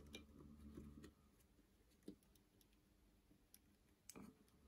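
Near silence, with a faint low hum that stops about a second in and two faint, brief clicks later on.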